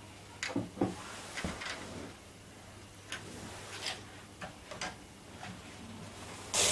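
Scattered light clicks and taps of plastic LEGO pieces being handled and pressed together, with a louder brief burst of noise near the end.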